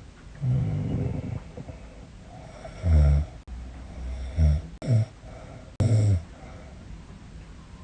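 A woman snoring in her sleep: five irregular, loud, low snores of uneven length. It is the kind of snoring she suspects is a sign of sleep apnea.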